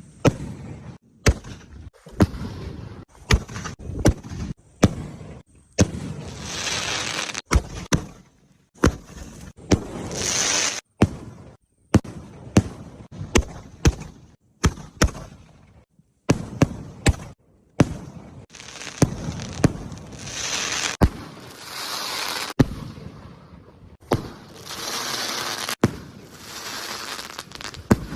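Sky-shot fireworks going off: a long run of sharp bangs, about one to two a second, with several hissing rushes between them.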